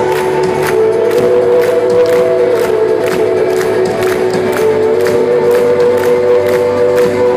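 Loud music with a steady beat of about two a second under long held notes.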